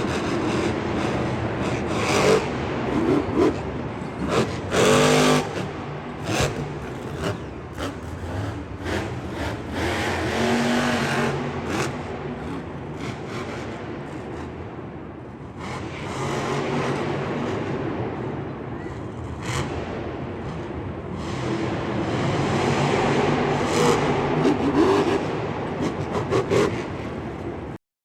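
Monster truck engines running and revving, with several sharp knocks and bangs along the way. The sound cuts off suddenly near the end.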